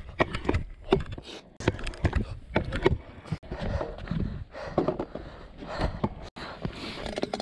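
Stunt scooter rolling on concrete and grinding a ledge in a Smith grind: irregular clacks and knocks from the wheels and deck against the concrete, with scraping in between.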